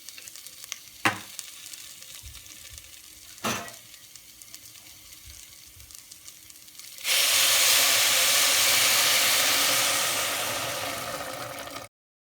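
Food frying in a pan with a soft crackle, and two sharp knocks of a utensil against the pan. About seven seconds in, a loud, steady sizzle starts suddenly, as if something were added to hot oil, and it cuts off abruptly near the end.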